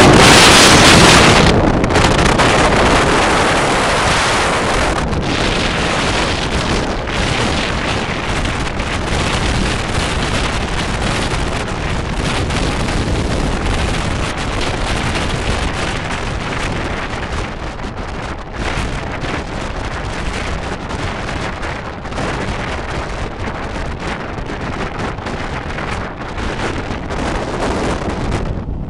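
Wind buffeting the microphone of a camera held out of a moving train's carriage window, a steady rush of noise that is loudest in the first two seconds.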